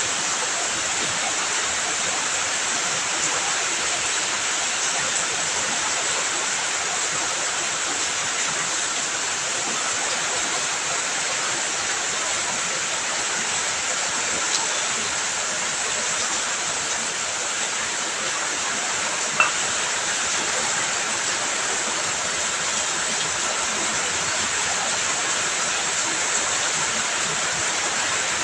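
Heavy rain falling steadily, an even hiss without let-up, with one sharp click about two-thirds of the way through.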